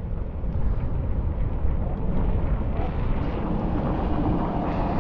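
Wind buffeting the microphone during a scooter ride: a rough, steady rumble with no clear engine note, growing brighter and stronger about halfway through.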